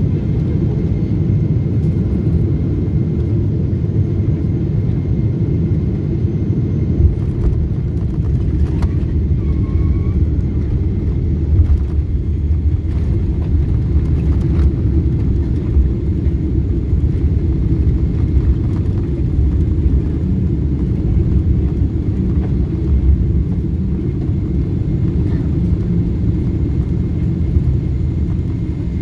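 Steady low rumble inside the cabin of a jet airliner on its landing rollout: the engines running in reverse thrust and the wheels on the runway as it slows, with a few brief knocks.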